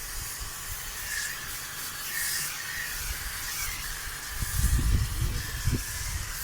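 Water hissing from a car-wash-style spray gun as a cow is hosed down, the spray swelling for a moment a few times. A few low rumbles come near the end.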